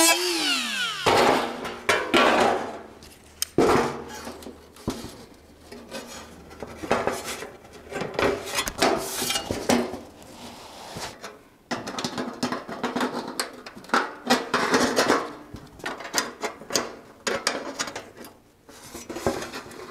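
A small cordless cutting tool winding down, its whine falling away about a second in. Then thin sheet-steel panels clank, scrape and rattle irregularly as they are handled and fitted against each other.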